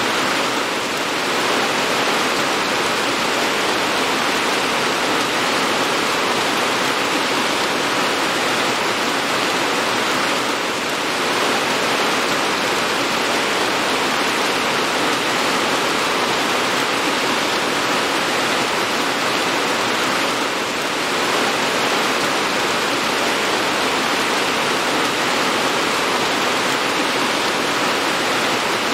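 Steady, even hiss of rain falling, with no thunder or music. It dips very slightly about every ten seconds.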